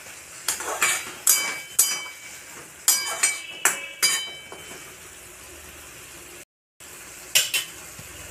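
A spatula scraping and clinking against a kadai as a fish, onion and tomato mixture is stirred: about eight sharp knocks with short ringing in the first four seconds, then a faint steady sizzle with one more clink near the end.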